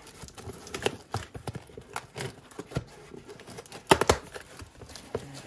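Small knife slitting the packing tape on a cardboard shipping box, with scattered short scrapes and taps; about four seconds in, a sharp burst of sounds as the tape parts and the cardboard flap is pulled open.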